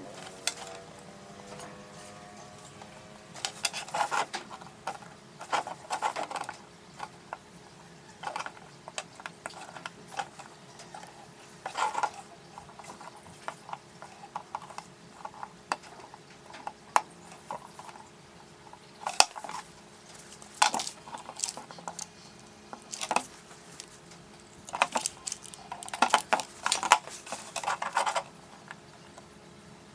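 Irregular clinks, taps and short scrapes of small metal parts and tools being handled, coming in clusters with pauses between them, over a faint steady hum.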